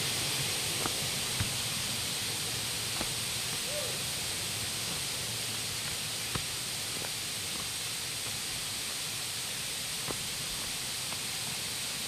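Steady rush of a river's running water, with a few faint, scattered ticks.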